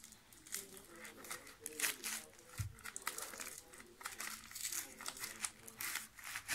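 Packaging on a long cardboard shipping box being unwrapped: irregular crinkling and tearing. There is a soft thump about two and a half seconds in.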